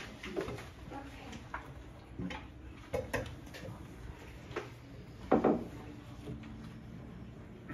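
Scattered knocks, clicks and rustles as people shift in their seats and handle dulcimers and sheet music in a room, with one louder knock about five seconds in.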